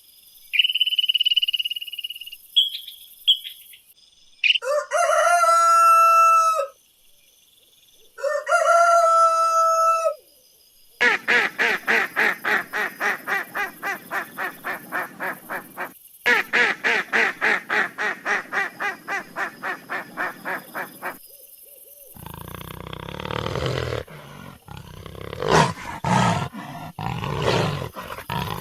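A run of domestic fowl calls: short high chirps at first, then two long pitched crows of about two seconds each, then a steady series of short repeated calls, about three a second, for some ten seconds. Near the end comes a rougher, noisier stretch of calls.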